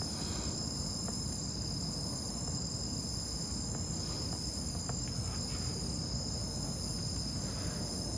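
Steady, unbroken high-pitched chorus of night insects such as crickets, over a low rumble of background noise.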